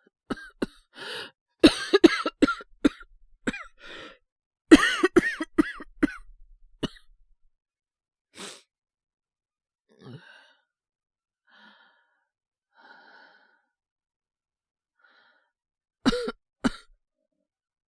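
A man's acted coughing fit, the cough of someone sick with a cold and high fever: repeated harsh coughs through the first seven seconds, a few faint strained breaths, then two more coughs near the end.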